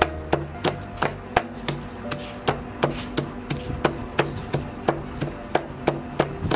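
Cleaver chopping raw pork on a wooden chopping block, mincing it with steady, even strikes about three a second.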